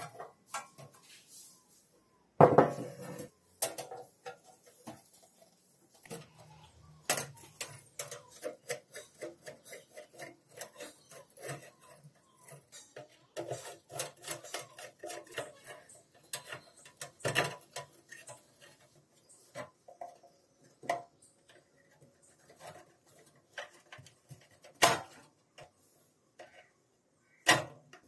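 Metal parts and hand tools clinking and knocking as they are handled: an irregular run of light clicks with a handful of louder knocks.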